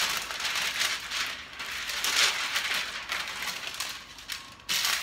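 A sheet of parchment paper rustling and crinkling as it is handled and pressed flat onto a baking tray. It is loudest about two seconds in, with a short, sharper crackle just before the end.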